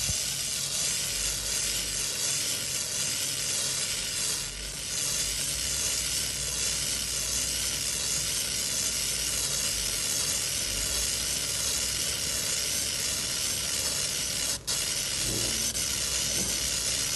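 100 W pulsed laser cleaning head ablating a surface: a steady sizzling hiss with a regular warble, cutting out for a moment about three-quarters of the way through.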